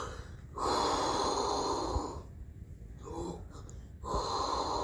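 A man imitating Darth Vader's respirator breathing through a baseball cap held over his mouth. A long hissing breath starts about half a second in and lasts about a second and a half, softer breaths follow, and another loud breath starts near the end.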